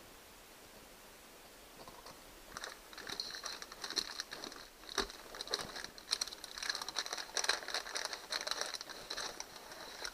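Crinkling and rustling of a bicycle shift-cable packet, with the coiled steel cable clicking and sliding as it is pulled out and handled. The rapid, irregular crackle starts a couple of seconds in and keeps going.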